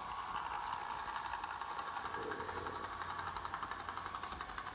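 Recorded helicopter sound: the steady rapid chop of the rotor over the engine, fading slowly near the end.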